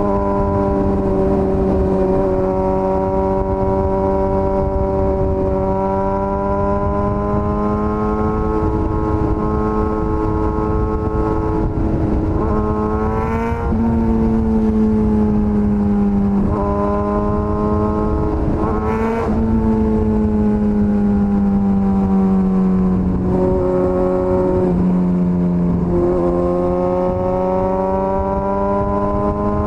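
Suzuki GSX-S1000's inline-four engine running under way, its pitch sagging slowly and then rising again, with quick sharp rises in revs about 13 and 19 seconds in and smaller changes later on.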